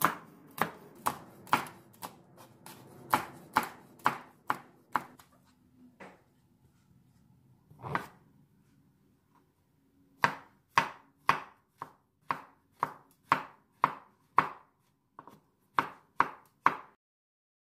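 Kitchen knife chopping on a wooden cutting board: a run of sharp knocks about two a second slicing red chili peppers, a pause with a single cut through a shiitake mushroom about eight seconds in, then another run of knocks slicing the mushroom.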